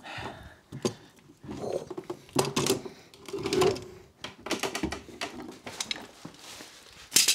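Irregular knocks, clatter and rustling as a person climbs down a wooden pull-down attic ladder carrying tools, with a sharp knock near the end the loudest.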